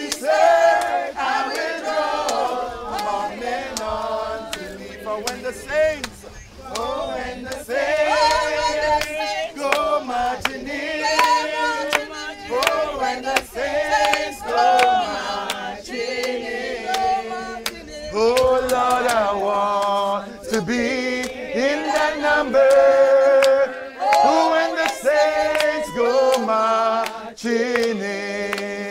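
A group of men and women singing a hymn together, with little or no instrumental accompaniment.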